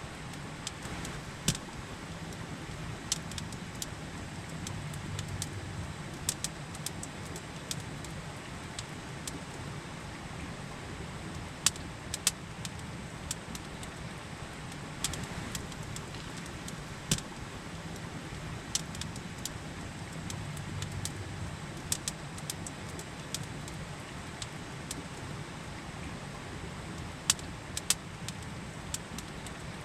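Campfire crackling, with sharp, irregular pops and snaps over the steady rush of a river.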